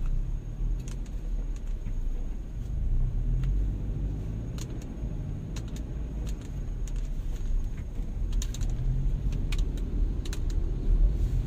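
Steady low rumble of motor traffic on a main road, with scattered light clicks and rattles.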